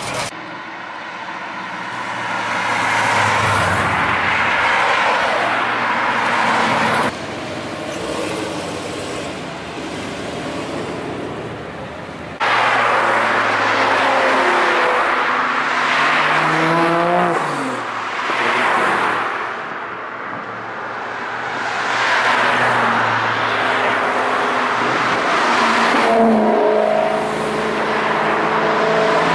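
A stream of cars driving past one after another, engines pulling and accelerating, the engine note of a passing car dropping in pitch as it goes by, twice. The level jumps abruptly a couple of times, loudest from about twelve seconds in.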